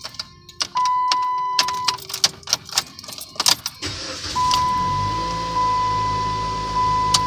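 A steady high beep sounds for about a second, then a run of clicks and clunks follows. About four seconds in, the Dodge Caliber's 2.0-litre four-cylinder engine runs with a steady low hum while the beep sounds again, which fits the no-crank, no-start fault being cured.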